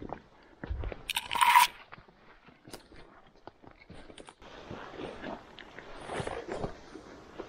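Footsteps crunching on the forest floor and brushing through vegetation, with a sharp loud crunch about a second in. After about four and a half seconds come steady rustling steps through undergrowth.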